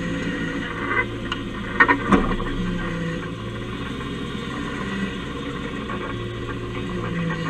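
Dodge Ramcharger engine running at a low, steady speed, picked up by a camera bolted to the truck's underside cross member. A few sharp knocks from underneath come between about one and two seconds in, the loudest about two seconds in.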